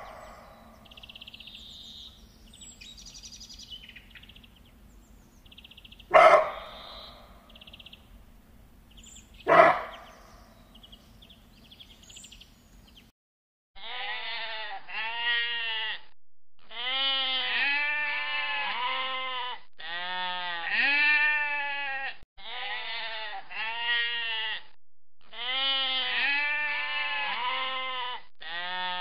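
Sheep bleating, one wavering call after another, from about halfway through. Before that, a low steady hum broken twice by a loud, short, sharp sound.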